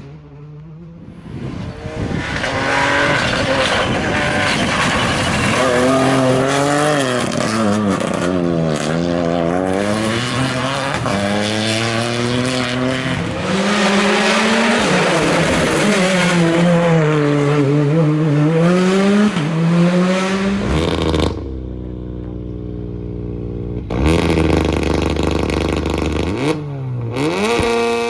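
Rally car engines at full effort: a car revs hard, climbing and dropping in pitch through repeated gear changes for about twenty seconds. A steadier, lower engine note follows, then another engine rising in revs near the end.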